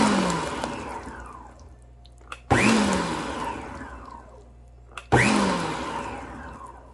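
Electric stand mixer with a dough hook pulsed three times, about two and a half seconds apart. Each time the motor comes on suddenly, then winds down with a falling whine as the hook churns flour into a wet bread dough.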